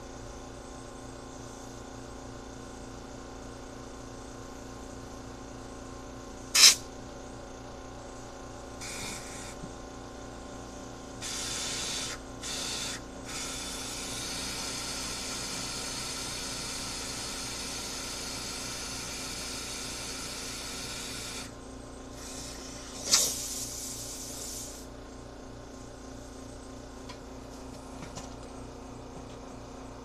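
Pressurized spray hissing in bursts: a few short sprays, then one long spray of about eight seconds, and a last short one. Two sharp clicks are the loudest sounds, one about a third of the way in and one just before the last spray.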